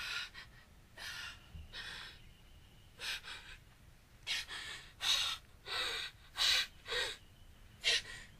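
A person gasping for breath: about ten sharp breaths, a second apart at first, then coming faster and louder from about four seconds in.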